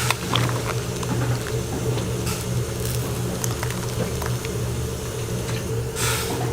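Egg fried rice sizzling as it is stir-fried, with scattered light clicks and scrapes over a steady low hum.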